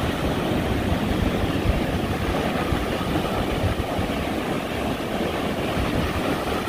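Ocean surf washing over the shallows and breaking offshore: a steady rushing noise, heaviest in the low end.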